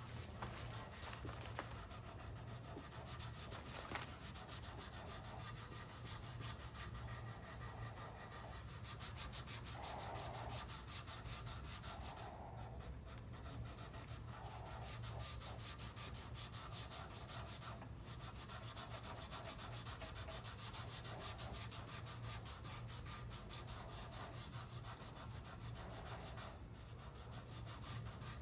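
Sandpaper rubbing back and forth over the cured epoxy repair on a carbon-fibre rigger, a continuous scratchy sanding, over a steady low hum.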